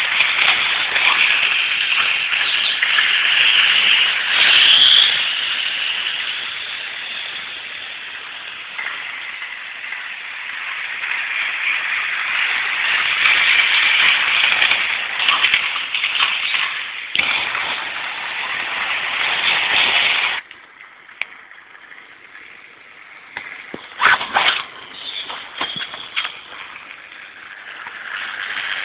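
Hornby model trains running on the track: a continuous whirring clatter of small motors and wheels on rails that swells as the trains pass close by. About two-thirds of the way through it cuts off suddenly, and a few sharp clicks follow.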